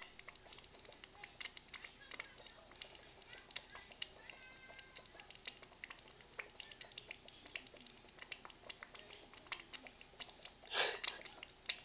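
Thick gravy bubbling in a glass saucepan over a gas flame: many soft, irregular pops and plops as bubbles burst through the surface. About four seconds in there is a brief faint squeal, and a little before the end a short, louder breath-like noise.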